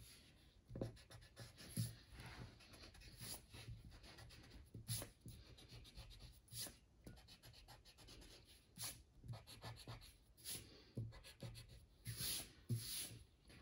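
Pencil eraser rubbing stray pencil lines off a sheet of drawing paper in short, irregular scrubbing strokes, faint and scratchy.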